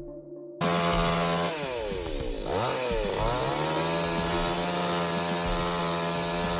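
Chainsaw running at high revs, starting abruptly about half a second in. Its pitch drops and swings back up around two to three seconds in, then holds steady.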